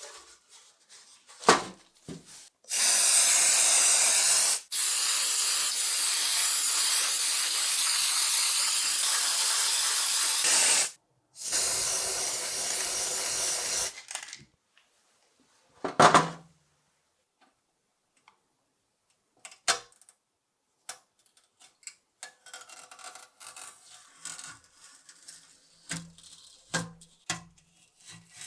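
Spray hissing in three long bursts, the middle one about six seconds, with short breaks between them. A few sharp knocks and small handling clicks follow in the second half.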